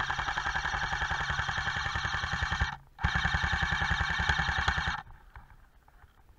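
Airsoft rifle firing two long full-auto bursts of rapid, even clicks: the first lasts about two and a half seconds, then after a brief pause the second lasts about two seconds.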